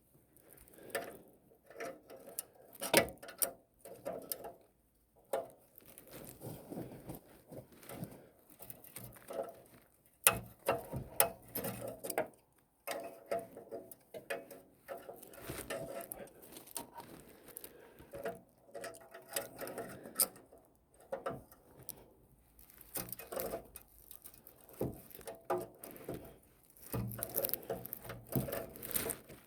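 Irregular clicks, clinks and scraping of hand tools working on metal parts, with a couple of sharper knocks about three and ten seconds in.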